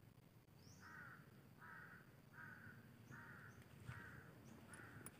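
A bird calling six times in a row, faint short calls evenly spaced about two-thirds of a second apart, with a few faint high chirps from smaller birds.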